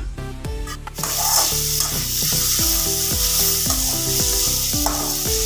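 Thoothuvalai leaves, onion and chillies sizzling as they sauté in hot oil in a pan. The sizzle gets suddenly louder about a second in and then holds steady.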